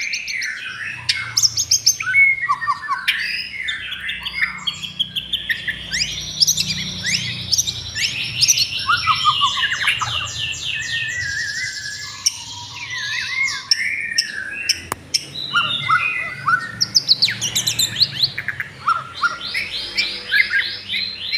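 Several birds chirping and singing at once: a dense, overlapping mix of short calls, quick pitch glides and fast trills of rapidly repeated notes, going on without a break.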